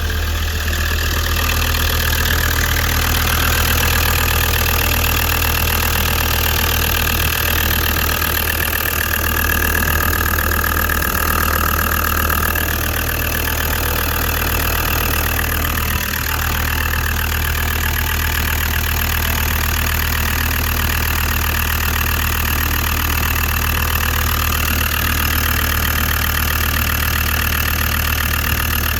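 Land Rover Td5 2.5-litre five-cylinder turbodiesel idling steadily, just after being started.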